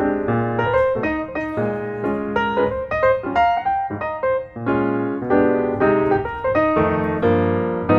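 Background music: a piano playing a steady run of notes.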